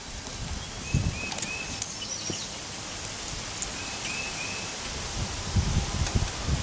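Wind gusting over the microphone while the nylon canopy of a 35-foot military surplus parachute rustles as it catches the air, with low rumbling gusts about a second in and again near the end. A bird calls twice, each time a quick run of three chirps.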